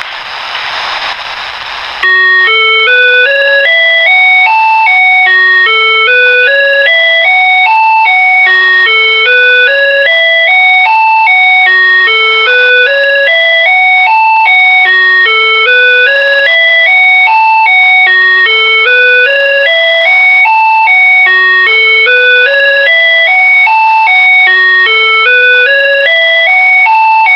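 Electronic emergency alert tone: a loud run of stepped beeps climbing in pitch, repeating about every three seconds, after about two seconds of hiss.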